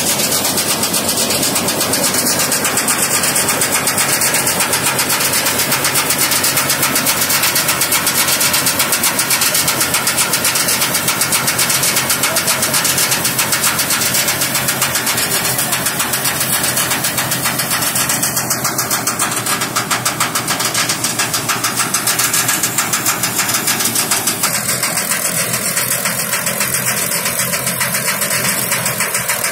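Tractor-mounted combine harvester running at work cutting and threshing wheat, a loud, steady mechanical din of engine and threshing gear with a rapid, even pulse, easing off slightly near the end.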